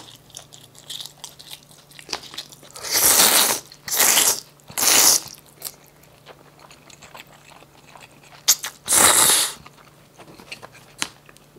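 A man slurping noodles, with loud slurps about three, four and five seconds in and again near nine seconds, and quieter chewing and small mouth clicks in between. A faint steady low hum runs underneath.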